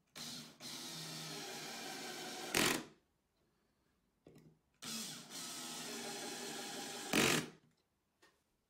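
Cordless drill/driver driving two screws into wood, one after the other. Each run is a steady motor whir of about three seconds that ends in a short, louder burst.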